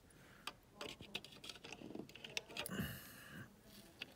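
Light, irregular clicks and taps of fingers handling the plastic wall plate and wire terminals of an old Honeywell thermostat, with one brief louder pitched sound about three seconds in.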